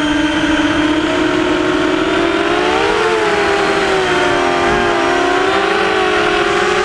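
Sunnysky 2300kv brushless motors and propellers of an HMB 235 quadcopter whining loudly, heard from the craft's onboard camera. The pitch holds fairly steady, wavering around three seconds in and dipping briefly near five seconds as the throttle changes.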